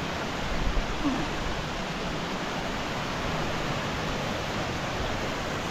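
Steady rushing of a waterfall, an even wash of falling water.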